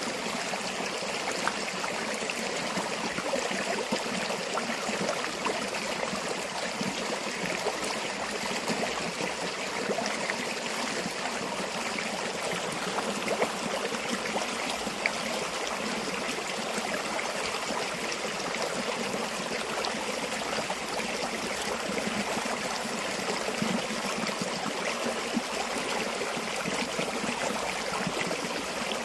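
A small river or stream running over stones, a steady babble of flowing water with small splashes and gurgles.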